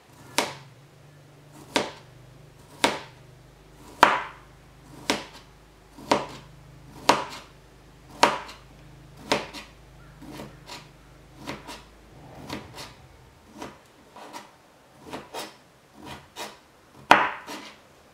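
Kitchen knife slicing a cucumber on a cutting board: sharp knocks of the blade hitting the board, about one a second at first, then quicker, lighter cuts in the second half with one louder knock near the end.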